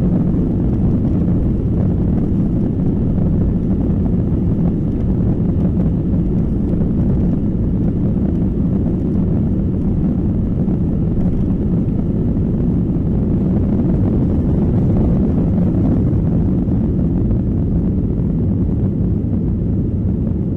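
Steady, deep cabin noise of an Airbus A321-212's CFM56 jet engines and rushing airflow, heard from inside the passenger cabin near the rear of the aircraft.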